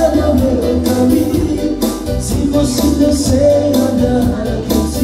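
Loud dance music with a singing voice and a steady beat, played over loudspeakers.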